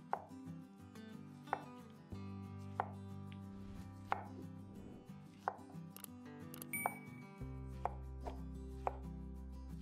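Sharp knocks, roughly one every second and a half, over low sustained notes that shift pitch in steps.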